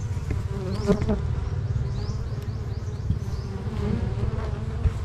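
A swarm of honeybees buzzing close around the microphone, stirred up after their hive box was opened; the bees are agitated and stinging.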